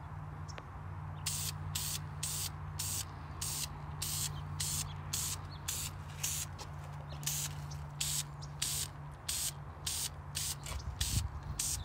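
Aerosol can of Dupli-Color ceramic caliper paint sprayed in short hissing bursts, about two a second, laying a light tack coat.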